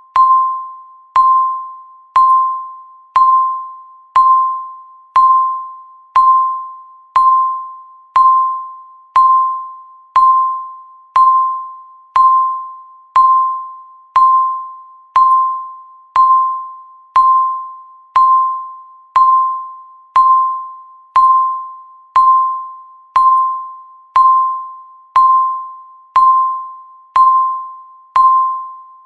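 Countdown timer beeping once a second: a single electronic beep tone, each one starting sharply and fading away before the next.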